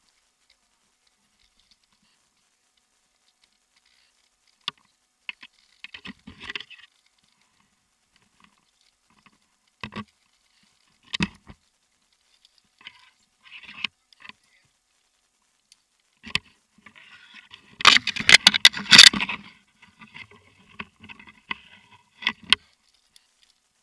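Scattered knocks, clicks and scrapes of a tree climber moving through an oak: hands and boots against bark and branches, rope and metal climbing hardware. The sounds begin about five seconds in, with a dense run of rattling clicks and rustling about three-quarters of the way through.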